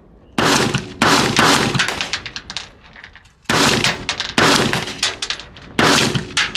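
Five gunshots in two groups: two about half a second apart near the start, then three more spread over the next two and a half seconds. Each shot trails off in an echo.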